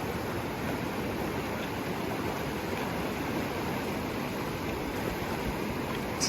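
A fast-flowing mountain creek rushing steadily, running high and swift with snowmelt.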